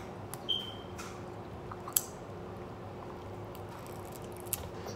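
Cracked stone crab claw shells being picked apart by hand while eating, giving a few sharp shell clicks and cracks, the loudest about two seconds in, with soft squishy eating noises. A brief high squeak comes about half a second in.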